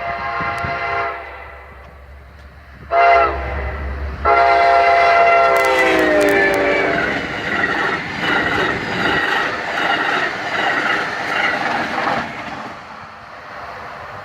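Locomotive air horn sounding the end of a long blast, then a short blast and a final long blast whose pitch drops as the train passes, matching the long-long-short-long grade-crossing signal. Then the train runs by with wheels clattering over the rail joints, fading out near the end.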